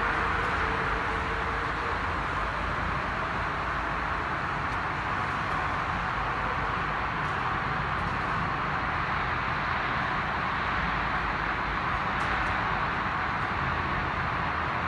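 Two ice resurfacing machines running on the rink, heard from high in the stands as a steady hiss and low rumble, blended with the arena's own machinery hum. A few faint ticks come near the end.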